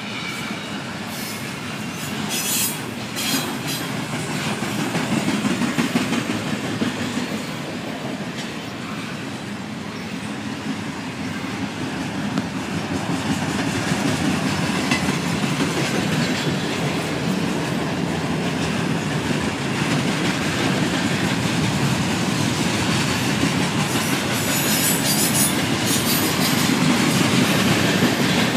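Norfolk Southern double-stack intermodal freight cars rolling past at speed: a continuous rolling noise of steel wheels on rail that slowly grows louder. Brief high squeals come about three seconds in and again near the end.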